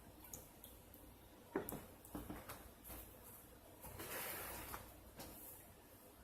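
Close-miked chewing of a blueberry muffin: small wet mouth clicks and smacks, with a soft breathy hiss about four seconds in.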